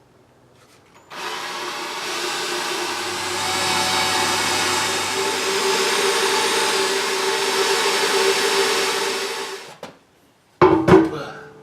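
Electric drill running steadily for about nine seconds, boring the marked holes for the motor mount, then stopping; a sharp clank follows near the end.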